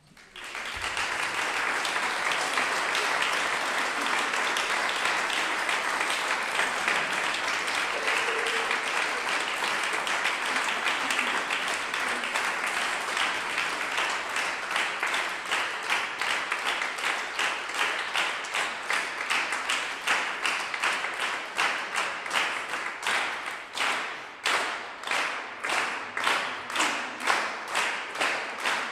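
Audience applause that starts right after a moment of quiet. From about twenty seconds in it turns into rhythmic clapping in unison, about three claps a second.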